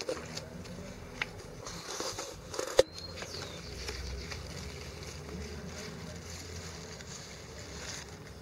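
Leaves and stems brushing and rustling against a handheld camera as it is pushed through garden plants, over a steady low rumble. There is a small click about a second in and a sharp knock near three seconds in, the loudest sound.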